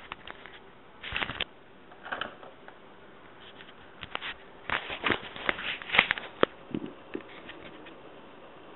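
Faint hiss with scattered clicks and crackles, densest about midway, from an old AM radio broadcast recording before the play-by-play begins.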